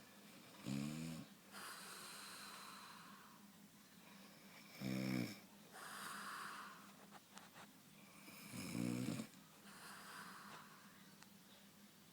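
A woman snoring in her sleep: three pitched, buzzing snores about four seconds apart, each followed by a breathy exhale.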